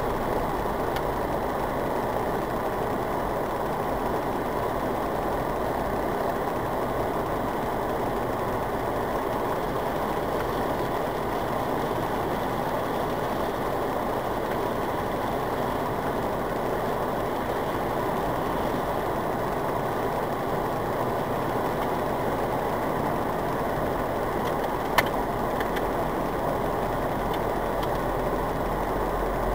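Steady running noise of a car heard from inside the cabin through a dashcam microphone, with a single sharp click late on.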